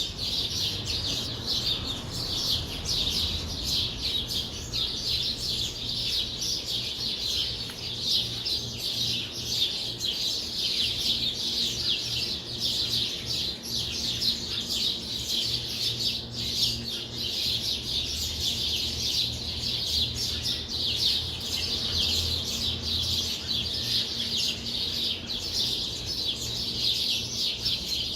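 Many small birds chirping at once in a dense, continuous chorus of rapid high-pitched chirps.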